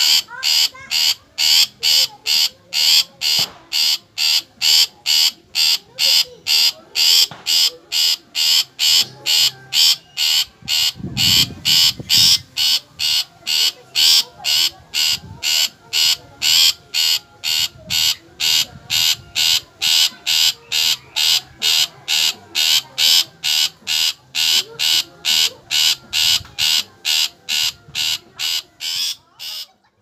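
Long-tailed shrike (cendet) calling a short, scratchy note over and over at a steady pace of about two calls a second.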